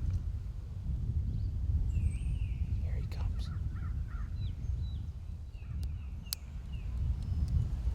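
Wind rumbling on the microphone, with two short runs of harsh bird calls, one about two seconds in and another past the middle, and a few sharp clicks between them.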